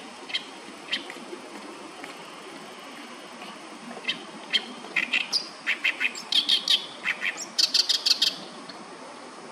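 Oriental reed warbler singing: a few scattered notes, then from about four seconds in a loud run of repeated harsh notes, ending near the end in a fast string of higher notes.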